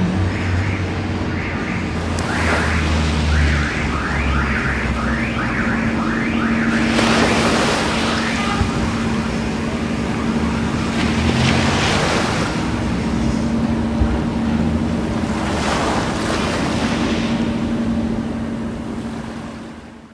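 Small waves breaking and washing up a shell-and-pebble beach in three surges about four seconds apart, over a steady low hum. A low engine rumble is heard for the first few seconds, and the sound fades out at the end.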